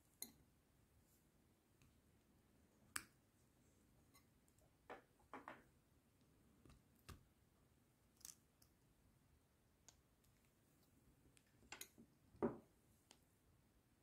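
Scattered small clicks and taps of metal and plastic flashlight switch parts being handled and gripped with diagonal cutting pliers; a few come in quick pairs, and the loudest tap falls near the end.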